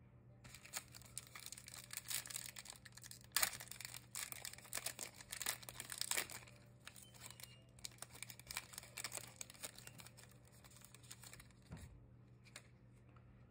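Foil trading-card pack being torn open, its wrapper crinkling and crackling as the cards are worked out; the crackles come thick and fast in the first half and thin out toward the end.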